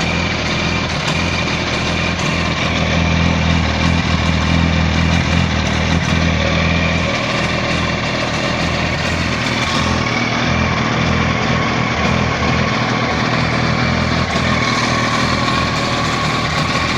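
2007 Yamaha R1's inline-four engine running steadily, with a rattle that the owner cannot identify.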